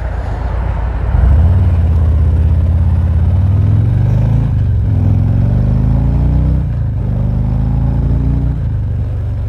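2019 Harley-Davidson Ultra Limited's V-twin engine accelerating, heard from a mic inside the rider's helmet: the revs climb, dip at shifts about halfway through and again twice more, then settle to a steady cruise near the end.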